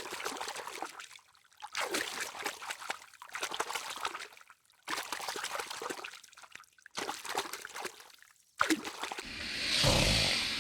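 Water trickling and splashing in several short stretches that stop abruptly, ending in a louder swell of noise near the end.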